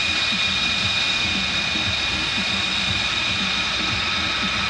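Jet turbine running steadily: a high, even whine over a broad rush.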